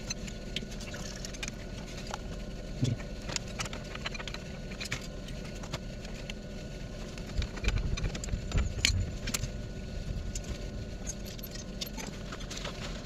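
Steady hum of boiler-room plant with scattered light metallic clinks and rattles as brass tap fittings and tools are handled. A cluster of louder low knocks comes a little past the middle.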